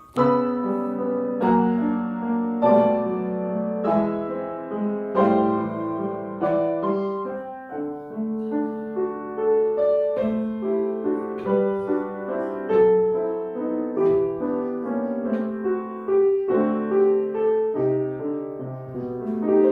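Piano played solo: sustained chords under a melody line, with accented notes on a steady, moderate pulse, as a piece is practised.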